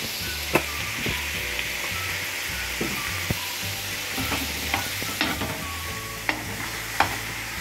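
Liver frying on a tawa with a steady sizzle while a spatula stirs it, clicking against the pan about six times. The liver's released juices are cooking off.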